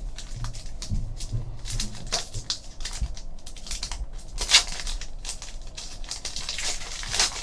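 Basketball trading cards and foil pack wrappers being handled: a run of light, irregular clicks and rustles as cards are flicked and slid against each other.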